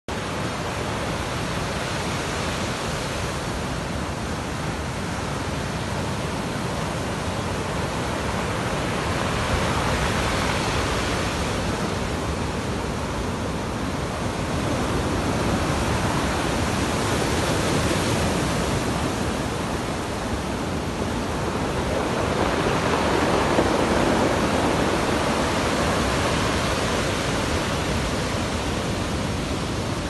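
Waves of a rough sea breaking on the shore: a continuous rush of surf that swells louder three times as bigger waves come in.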